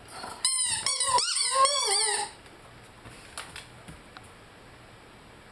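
Rhodesian Ridgeback giving a run of short, high whining howls with sliding pitch for about two seconds, then falling quiet apart from a few faint clicks.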